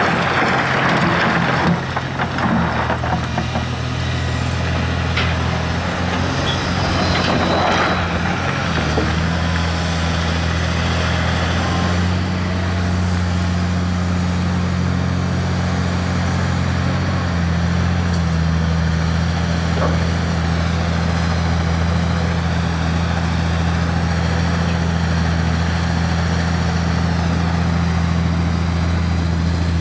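Komatsu PC350LC long-boom excavator's six-cylinder diesel engine running steadily under work. In the first several seconds there is scraping and clattering of rock and gravel as the bucket digs. About nine seconds in, the engine note becomes fuller and stronger.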